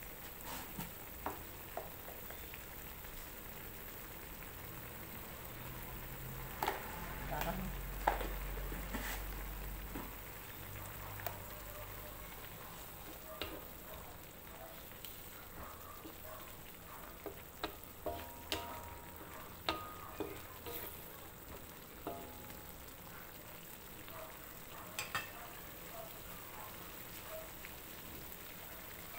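Bamboo shoots cooking in broth in an aluminium wok, a steady faint sizzle, with a metal spatula scraping and knocking against the wok as it is stirred, the knocks coming in irregular runs.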